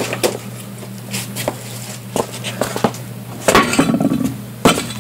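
Scattered metallic clinks and knocks from tire-change tools and the spare tire being handled, with a louder clatter about three and a half seconds in and a sharp knock near the end, over a steady low hum.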